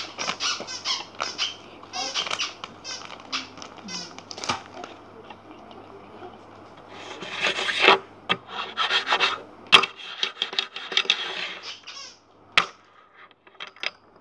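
Rustling and rubbing of toy packaging being handled, in repeated bursts, with two sharp clicks in the second half.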